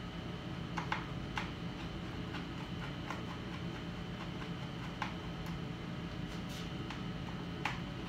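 Scattered sharp clicks and ticks of small metal and plastic parts and a tool being handled inside an opened iMac, about seven in all at uneven intervals, over a steady background hum.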